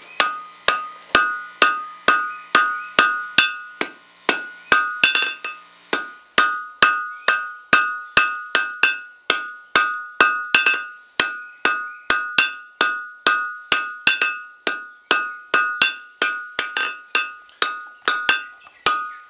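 Hand hammer striking red-hot iron bar stock on an anvil at about two blows a second, some blows doubled, with the anvil ringing in a steady high tone between strikes. The smith is forging the flared end of an auger bit over the anvil's corner to form an edge.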